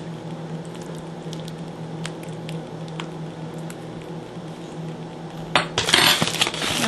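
A basting brush dabs barbecue sauce onto pork ribs in aluminium foil: faint wet squishing and light clicks over a steady low hum. About five and a half seconds in, the aluminium foil crinkles loudly as it is handled.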